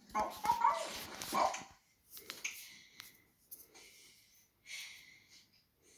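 A cartoon puppy barking a few times in quick succession in the first second and a half, followed by faint scattered small sounds.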